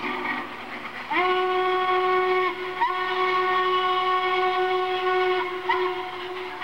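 Norfolk & Western steam locomotive whistle blowing in blasts, each sliding up to pitch as it opens: one about a second in, a longer one from about three seconds, then a brief toot near the end, over the rumble of the train.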